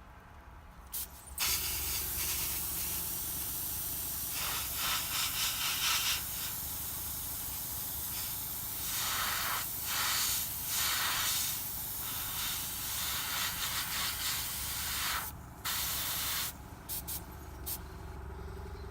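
Airbrush spraying paint: a steady hiss of air that swells several times, then breaks off briefly a little over three-quarters of the way through before a few short spurts.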